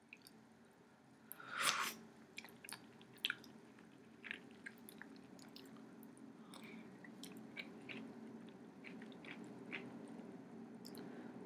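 A person eating chicken soup from a spoon: chewing and small wet mouth clicks scattered throughout, with one louder noise about two seconds in, over a steady low hum.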